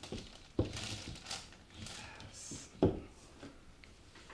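Handling sounds at a paper-covered craft table: two knocks, the second and louder one near three seconds in, with light rustling between.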